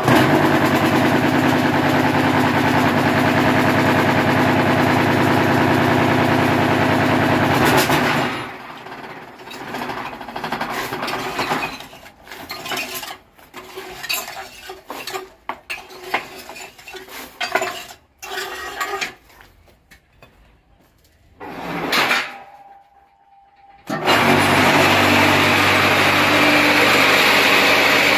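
Electric vibrator motor on a homemade cinder-block making machine running with a loud, steady hum, which stops abruptly about eight seconds in. Irregular metal clanks and knocks follow as the machine is worked, then a short burst of sound and a brief lull, and the vibrator hum starts up again near the end.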